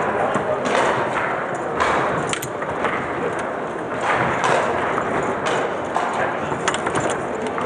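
Table football in play on a Lehmacher table: sharp knocks and clacks of the ball against the rod figures and table walls, several in quick succession near the end, over a steady murmur of spectators.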